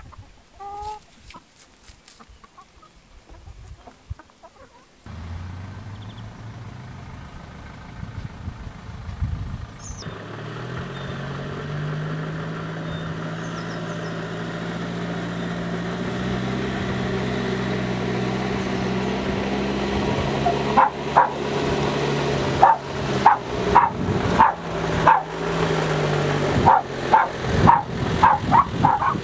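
A pickup truck's engine approaching and growing steadily louder as it comes down a dirt track. From about two-thirds of the way in, a dog barks repeatedly. A few chicken clucks are heard before the engine.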